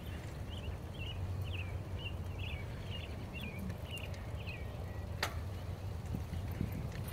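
Mountain bike rolling along a dirt trail, a steady low rumble. A run of short high chirps sounds through the first half, and a single sharp click comes about five seconds in.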